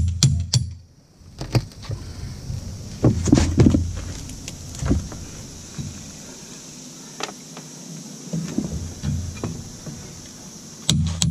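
Hammer work on plywood roof decking: a few scattered knocks and tool clatter, then a steady run of metal-on-metal hammer blows about three a second near the end, a hammer driving a cat's paw pry bar under nails to pull them.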